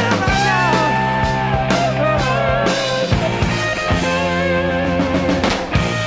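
A recorded 1970s rock song playing, an instrumental passage with guitar and a steady drum beat.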